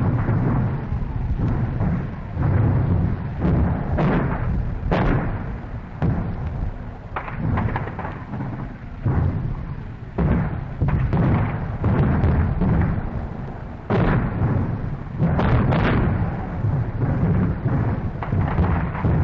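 1944 battlefield recording of a British artillery barrage with German mortar fire landing about 150 yards away: a continuous heavy rumble broken by sharp blasts, roughly one every second, at irregular intervals.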